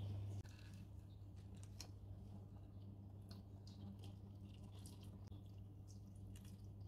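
Faint, scattered small clicks and ticks of handling over a steady low hum. The hum drops in level about half a second in.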